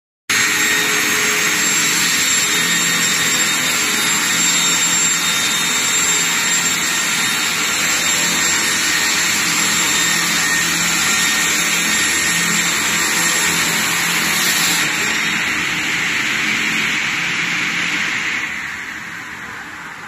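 Log sawmill running and sawing through wood: a loud, steady whine and hiss from the blade and machine, fading over the last couple of seconds.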